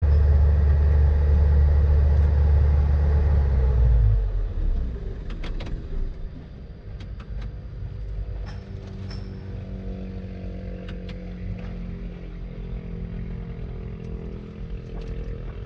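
Hydraulic excavator's diesel engine heard from inside the cab, running loud and hard for about four seconds, then easing off to a lower, quieter running. A few light clicks and knocks sound over it.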